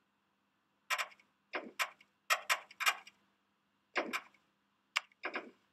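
Short, irregular clusters of sharp clicks or taps, two to four strikes in each group, over a faint steady hum.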